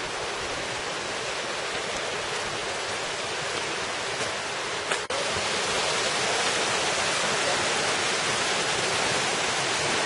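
Steady rushing of a shallow mountain stream running over rocks. About halfway through there is a momentary break, after which the rush is a little louder.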